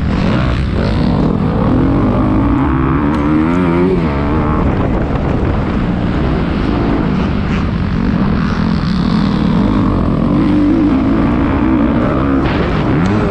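Motocross dirt bike engine revving hard and easing off repeatedly, its pitch rising and falling as the throttle is worked around the track, picked up by the rider's GoPro.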